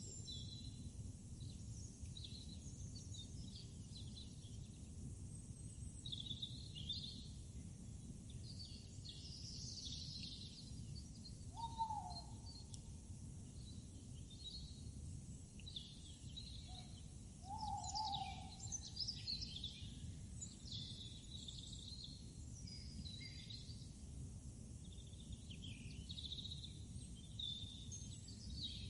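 Outdoor ambience of many birds chirping and calling over a steady low rumble. Two short, lower, falling calls stand out about twelve and eighteen seconds in.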